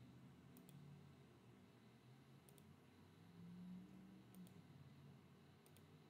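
Near silence broken by four faint computer mouse clicks, spaced about every one and a half to two seconds, each a quick double tick.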